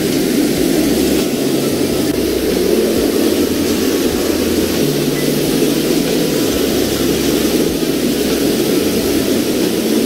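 Steady rush of creek water cascading over rocks at a waterfall.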